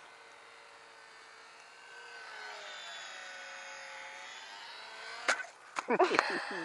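Small electric motor and propeller of a ParkZone ultra-micro P-51 Mustang RC plane buzzing in flight, getting louder about two seconds in, its pitch dipping and rising as it passes. Near the end a sharp knock, then a burst of loud rustling and clattering.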